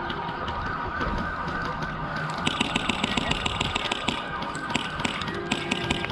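Airsoft guns firing: a rapid string of sharp cracks starting about two and a half seconds in and lasting under two seconds, then a few scattered single shots, over a steady background tone.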